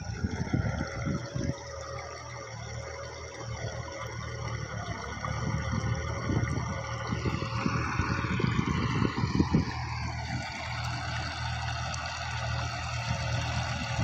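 New Holland 3630 tractor's diesel engine running steadily; its note eases down slightly around the middle.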